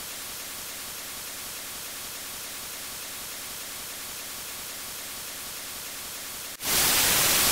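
Steady hiss of static-like white noise, spread evenly from low to high pitch. About six and a half seconds in it jumps much louder.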